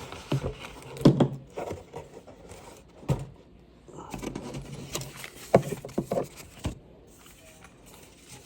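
Scattered clicks and knocks of a smoke alarm and its battery being handled, about half a dozen short sharp sounds spread irregularly, over a low steady hum.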